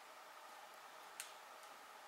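Near silence: a faint steady hiss, with one short sharp click about a second in.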